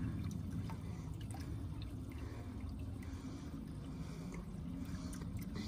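Water trickling and dripping into a small backyard pond, with faint scattered drips over a low steady rumble.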